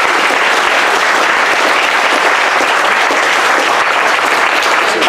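A crowd of guests applauding, steady dense clapping.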